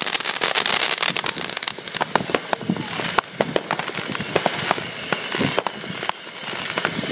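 Fireworks and firecrackers going off: a dense, rapid crackle for about the first two seconds, then scattered sharp bangs.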